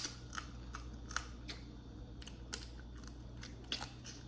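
A person eating at the microphone: a run of short, irregular crunching and clicking chewing sounds, loudest right at the start and again near the end.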